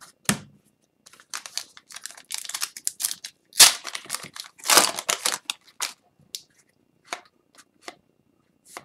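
Foil wrapper of an Upper Deck hockey card pack crinkling and tearing as it is pulled open by hand, in a run of crackly bursts loudest in the middle, followed by a few faint ticks of cards being handled.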